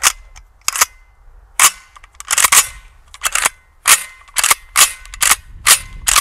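A rapid, irregular series of sharp gunshots, about a dozen in six seconds, spaced roughly half a second apart.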